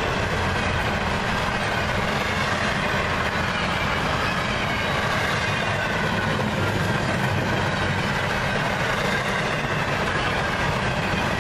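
Freight train's intermodal well cars rolling past close by: a steady rolling rumble and rattle of steel wheels on the rails, even throughout.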